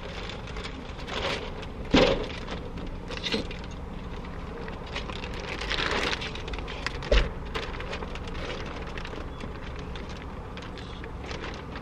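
A large plastic-wrapped cardboard box holding a full-length mirror being pushed through from the trunk into the car: plastic wrap crinkling and cardboard scraping. Sharp knocks come about two seconds in and again about seven seconds in, the second with a dull thud.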